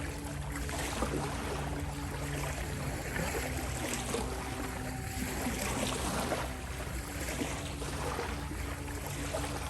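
Ocean waves washing and splashing, over a soft bed of sustained, steady tones from 528 Hz healing music.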